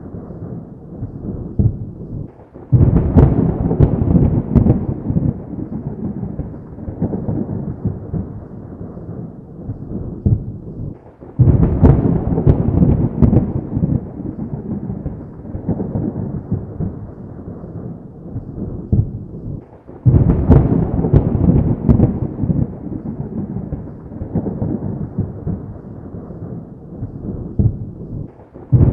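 Thunder: three sudden loud claps about nine seconds apart, each trailing off into a long low rumble that fades before the next.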